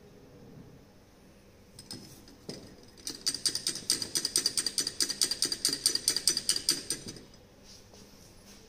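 Rapid clinking of glass in the titration beaker, as a glass rod stirs the solution and knocks against the beaker wall after a drop of titrant is added: about ten light clicks a second for some four seconds, with a couple of single clinks just before.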